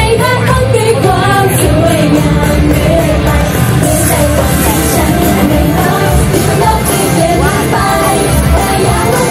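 Loud Thai idol-pop song played over a PA system, with female voices singing over a steady bass-heavy backing track.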